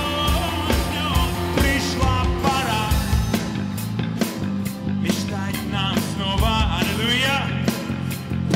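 Live rock-style band playing a worship song: drums, bass guitar, electric guitar and keyboard, with a man singing into a microphone. The drums get busier, with quicker regular hits, about three seconds in.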